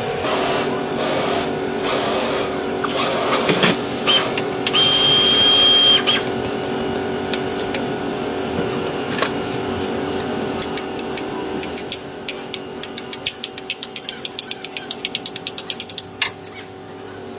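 Ratchet wrench clicking in a long run of rapid, even clicks in the second half, over a steady machine hum. About five seconds in, a loud hiss with a whistling tone lasts about a second, with scattered knocks of tools around it.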